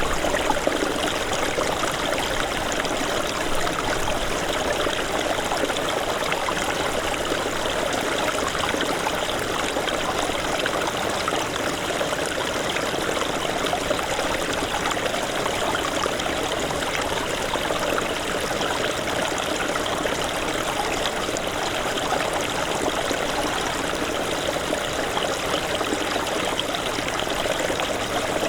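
Small snowmelt stream running over rocks: a steady babble and trickle of water.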